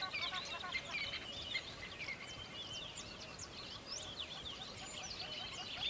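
A dense chorus of many birds chirping and calling over one another, with quick high chirps and whistles on top of a lower, steady chatter of short repeated notes.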